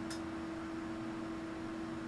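Steady electrical hum with a constant hiss from bench test equipment running. There is a brief click just after the start.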